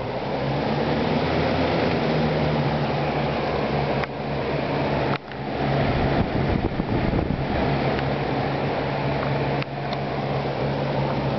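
A mid-1980s Galaxy 3713 box fan runs, a steady motor hum under an even rush of air. It comes up to speed over the first second, with brief dips in level about four, five and ten seconds in. It runs freely now that its formerly seized rear motor bearing has been oiled.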